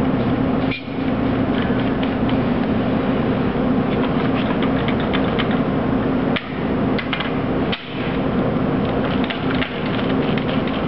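Industrial machinery running with a steady hum and scattered mechanical clicks and clacks, briefly dipping in level three times.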